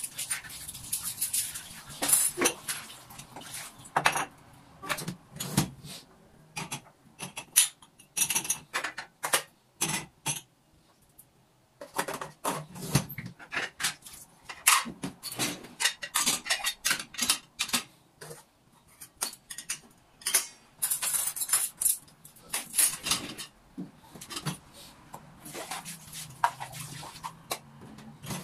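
Dishes and cutlery being handled: irregular clinks and clatters of crockery and metal, with a brief lull about ten seconds in.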